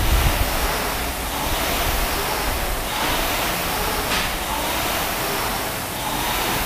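Air-resistance rowing machine's fan flywheel whooshing steadily, swelling with each hard pull about every two to three seconds.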